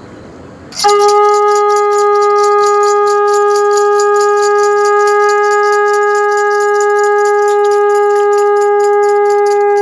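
Conch shell (shankh) blown in one long steady note that starts about a second in and is held to the end, over a fast, even, high-pitched jingling of about five strokes a second.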